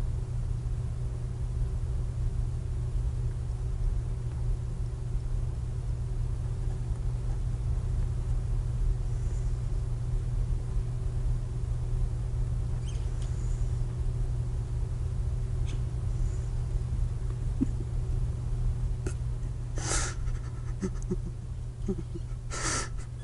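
Steady low electrical hum and hiss of an old studio videotape recording, with no speech. Near the end come two short, hissy breaths.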